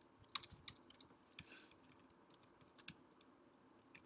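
High-pitched electronic screeching tone, pulsing rapidly and evenly, which the uploader suspects is a fault in his recording rather than a real sound. A few faint clicks sound beneath it.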